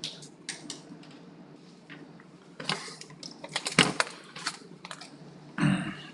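Scattered sharp clicks and taps, coming quickly in a cluster around the middle, then a louder, duller knock near the end.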